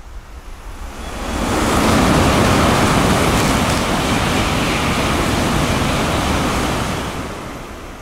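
Shinkansen bullet train passing through a station at high speed without stopping, on rain-soaked track. A rushing noise swells up about a second in, holds steady for about five seconds as the cars go by, and fades away near the end.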